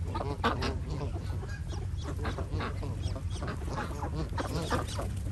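A feeding flock of Canada geese and ducks calling: many short honks and quacks overlapping one another throughout.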